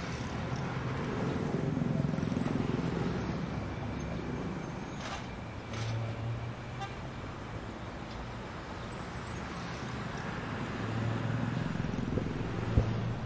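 Road traffic noise: a steady rumble of passing cars and motorbikes.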